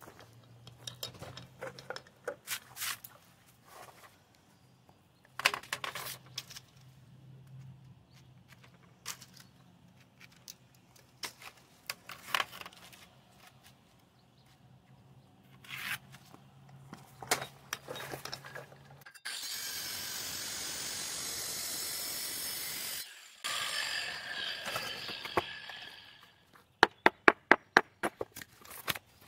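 Rock being worked at a workbench: scattered scrapes and knocks, then a power tool with a cutting blade running into the stone for about four seconds and again, more briefly, just after. Near the end comes a quick run of about eight sharp taps.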